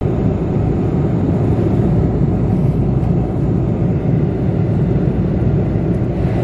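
Steady, deep cabin noise of a Boeing 747-400 in cruise, heard from inside the cabin: an even rush of airflow and engine drone with no changes, cutting in abruptly from silence at the start.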